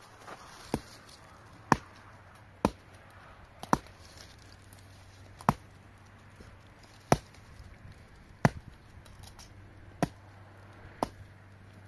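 Repeated sharp chopping blows, about nine strikes at uneven intervals of one to two seconds.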